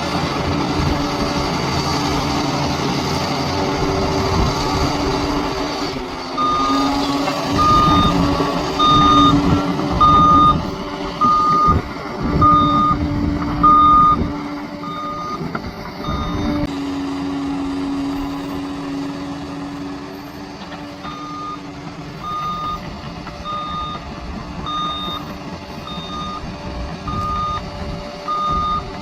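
Bulldozer's diesel engine running under load while its reversing alarm beeps about once a second as it backs up. The beeping stops for a few seconds in the middle of the clip, then starts again.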